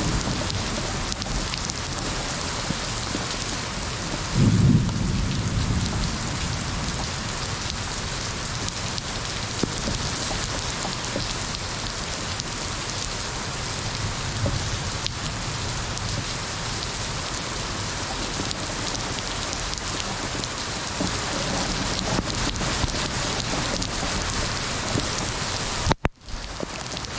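Steady heavy rain hiss with thunder: one short loud low clap about four and a half seconds in and a softer rumble around the middle. The sound cuts out abruptly for a moment near the end.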